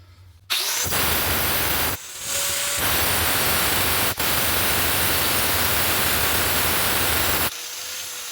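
Angle grinder with an abrasive cutoff wheel cutting into steel knife stock, a loud hissing grind. It starts about half a second in, eases off briefly around two seconds, then runs steady until near the end, when the cut stops and the wheel spins down with a slowly falling whine.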